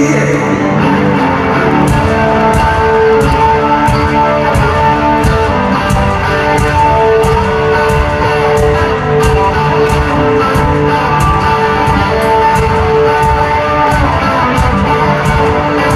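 A rock band playing live in an arena, led by an electric guitar holding long sustained notes over drums and bass, with a steady drum beat. The recording is loud and comes from a phone in the audience.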